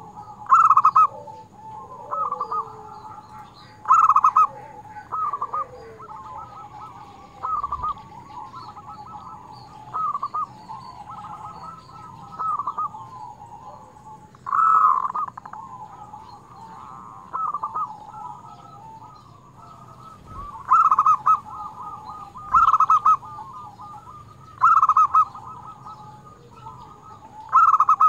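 Zebra dove (perkutut) cooing: louder phrases of rolling, staccato coos come every two to three seconds, with softer cooing running between them.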